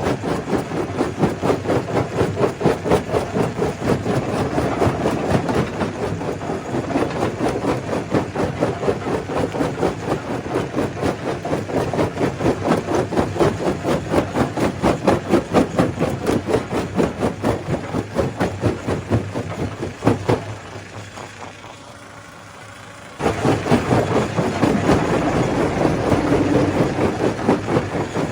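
Stone crusher machine running with a rapid, regular pounding rhythm. About two-thirds of the way through it drops suddenly to a quiet hum for a few seconds, then comes back just as suddenly.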